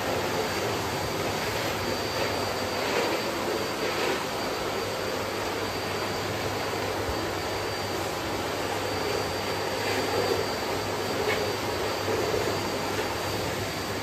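Bosch BGS21X320 bagless canister vacuum cleaner running steadily, a rush of air with a thin high whine, as its floor nozzle is pushed over a laminate floor.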